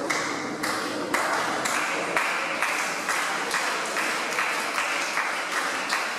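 Wrestling crowd clapping in unison in a steady rhythm, about two claps a second.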